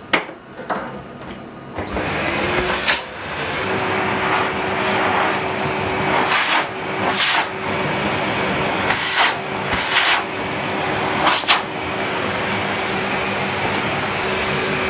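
A click, then about two seconds in a dust-extraction vacuum starts up and runs with a steady hum. Its hose sucks sawdust off a freshly cut plate, with brief louder rushes now and then as debris goes up the hose.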